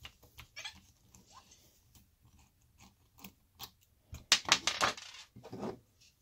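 Hex driver working on the front wheel hub of an RC car, with faint clicks and ticks, then a quick run of louder clattering knocks a little after four seconds and one more clatter near the end as the wheel comes off and small parts are handled.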